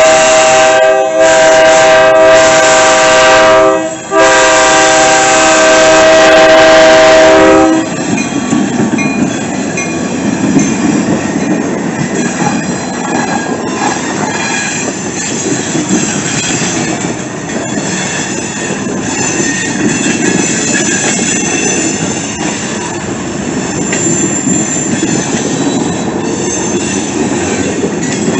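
Diesel freight locomotive's air horn blowing long blasts with two brief breaks, stopping about 8 seconds in. Then the train passes close by: the locomotive rumbles and loaded hopper cars' wheels clack and squeal on the rails.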